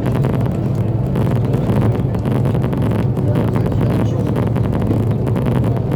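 Meteor hydrofoil under way, its diesel engines droning with a steady low hum and rushing water and wind noise over it, heard from aboard; wind buffets the microphone.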